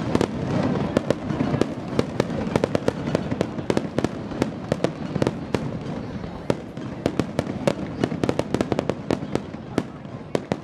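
Aerial firework shells bursting in quick succession: a dense run of sharp bangs and crackles, many each second.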